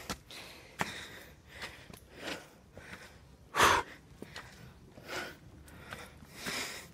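Hard breathing of a person climbing steep stone steps uphill: a loud breath about every second and a half, the loudest about halfway through. Small clicks of footsteps on the stone fall between the breaths.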